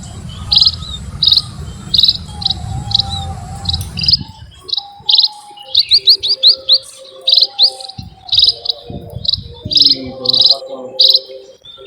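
A flock of munias (burung emprit) chirping: short, high calls repeating about once or twice a second, with a quick run of rising notes midway. A low rumble underlies the first four seconds, then stops.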